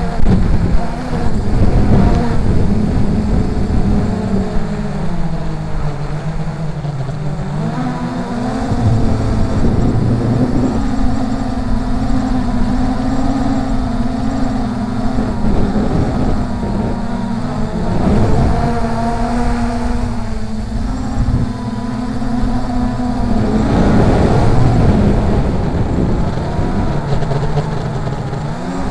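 Brushless motors and propellers of an MJX Bugs 3 (Force 1 F100 Ghost) quadcopter humming in flight, the pitch dropping and rising several times as the throttle changes. Wind buffets the drone's onboard microphone.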